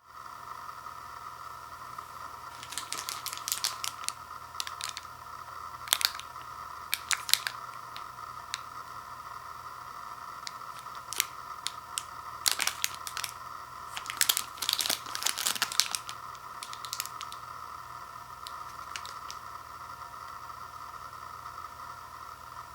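Plastic candy-bar wrapper crinkling and tearing in scattered clusters as it is handled and opened, over a steady background hum.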